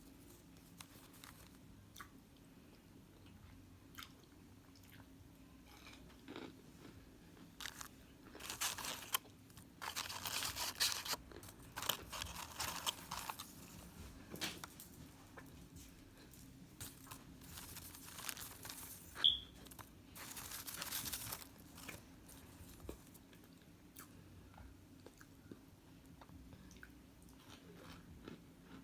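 A person biting into and chewing microwaved cornstarch chunks, with scattered crunchy clicks and two louder stretches of crunching near the middle.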